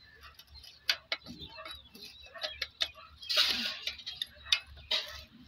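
Metal clicks and clinks of a spanner working a stiff, rusted nut on the blade mount of a hand-wheel fodder chaff cutter, with one short rasp a little past three seconds in.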